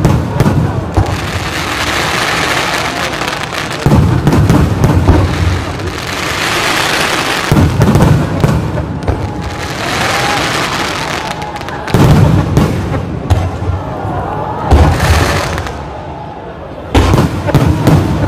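Aerial firework shells bursting in a display, with a deep boom about every three to four seconds and a steady hiss between the bursts.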